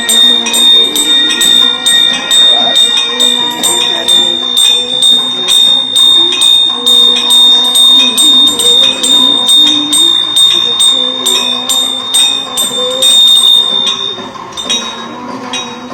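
Temple bell ringing rapidly and continuously, a fast, even run of strikes over a steady high ringing tone that fades near the end.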